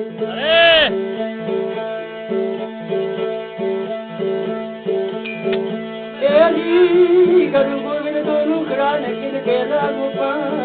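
Devotional bhajan music: steady held drone notes under a plucked string instrument, with a voice gliding through ornamented notes near the start and again from about six seconds in.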